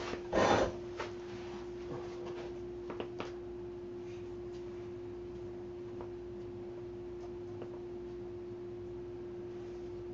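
A steady single-pitched hum holding one mid tone without wavering, over faint room tone, with a short breathy burst just after the start and a few faint clicks.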